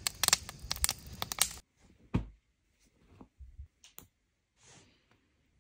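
Wood fire crackling in a steel mesh fire pit, cutting off abruptly about a second and a half in. Then faint rustling of clothes being handled, with a soft thump and a few light clicks.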